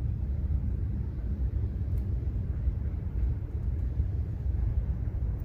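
Low, uneven rumble of wind buffeting the microphone, with a faint click about two seconds in.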